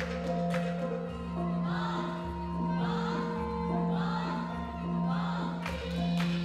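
Recorded stage music: a low pulsing drone under held tones. Struck mallet-percussion notes sound at the start and return near the end. Between them a short wordless, choir-like phrase repeats four times, about a second apart.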